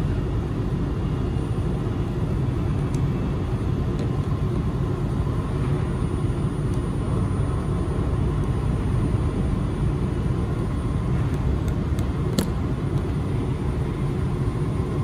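Steady running noise inside a Linimo 100-series HSST maglev car cruising between stations: a low rumble and rush of air, with a faint high steady tone and a sharp click about twelve seconds in.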